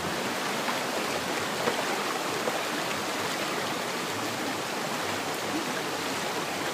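Shallow rocky stream rushing steadily over stones in small rapids.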